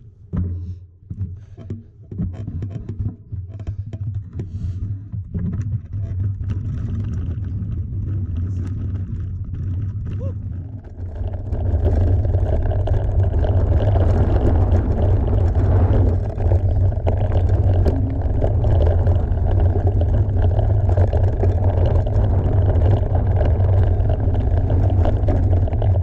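Mountain bike riding a trail: wind rumbling on the camera microphone over tyre noise, with scattered knocks and rattles early on. About halfway through the rumble gets much louder and stays steady.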